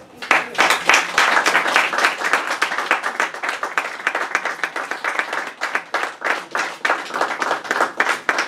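Audience applauding: many people clapping in a dense round.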